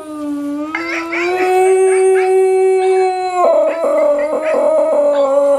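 Dog howling: one long, loud howl that rises slightly in pitch, then jumps to a higher note about three and a half seconds in and carries on. The dog is howling in response to the sounds of videos played on a phone.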